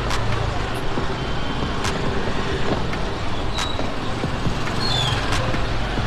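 Motor scooter engine running steadily at low speed, a low hum under street noise, with a few sharp clicks.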